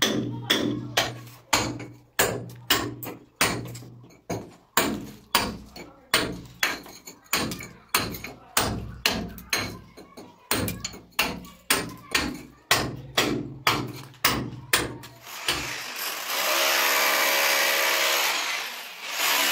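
Background music with a steady beat, about two beats a second. About sixteen seconds in, an electric rotary hammer starts and runs steadily as its chisel bit cuts a channel for a pipe into a brick wall.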